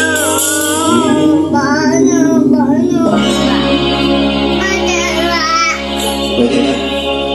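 A man singing karaoke into a handheld microphone over a backing track, amplified through a 7-channel mixer under test. His voice wavers with vibrato, and the track's bass comes in about three seconds in.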